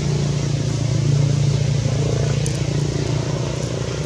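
A motor engine running steadily nearby, swelling a little about a second in and then holding.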